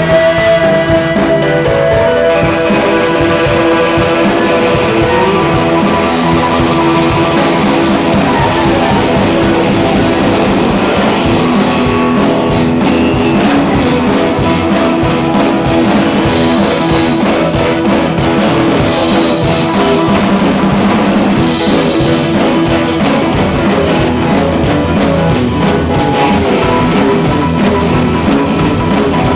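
Live rock band playing: two electric guitars over a drum kit keeping a steady beat.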